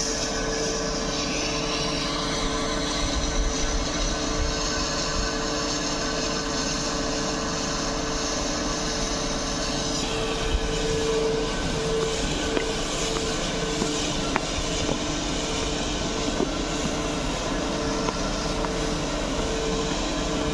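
Steady mechanical hum of the dam's water pumping machinery, with water rushing and splashing as it pours from the outlet pipe into the reservoir.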